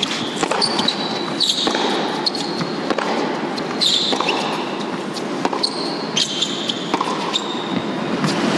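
Tennis rally on an indoor hard court: repeated sharp racket strikes and ball bounces, with short high squeaks of tennis shoes on the court.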